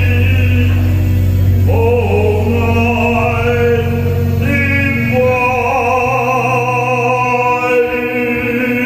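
A man sings through a handheld microphone and PA, holding long notes over an accompaniment of sustained low bass notes.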